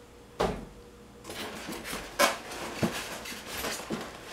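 Parts and packaging of a powder coating kit being unpacked and set down: a sharp knock about half a second in, then rustling with several light knocks and clicks.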